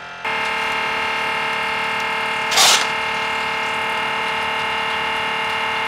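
Electric vibrating soil sieve (Xava Garden-Master) running, a steady even machine hum as its vibration motor shakes the screen to sift the soil. A short rustling burst about two and a half seconds in.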